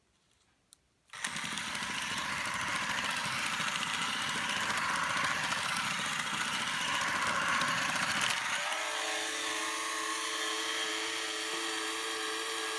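Small DC gear motors of a micro:bit robot car whirring as it drives in a circle, starting about a second in. About two-thirds of the way through the whir changes to a steadier hum with a few clear steady tones.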